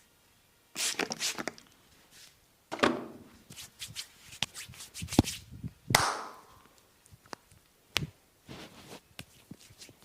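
A masseur's hands slapping, striking and rubbing on a man's back during a deep-pressure back massage: irregular sharp hits with short rubbing strokes between them, the loudest about five to six seconds in.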